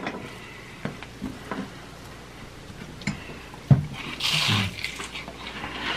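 Close-miked eating sounds: quiet wet mouth and chewing noises with a few small clicks, then a sharp click and a crunchy bite into a piece of crispy fried food a little before four seconds in.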